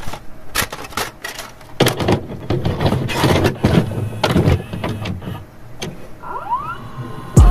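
VHS-style glitch sound effects: crackling static bursts and clicks, with a rising mechanical whir about six seconds in, then a sudden loud onset at the very end.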